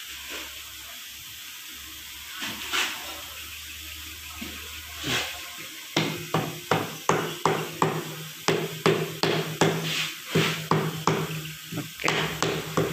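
Hand ratchet wrench clicking in quick, even strokes, about three a second from about six seconds in, as the bolts of a vacuum pump are run down on a Mitsubishi 4D34T diesel engine block. Before that, only soft handling of metal parts.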